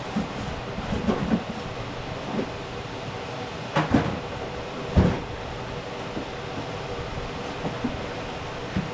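Cardboard boxes being handled and set down: scattered knocks and thumps, the loudest about five seconds in, over a steady background noise.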